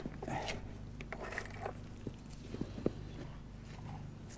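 Faint, scattered knocks and scrapes as a horse is shod, over a steady low hum.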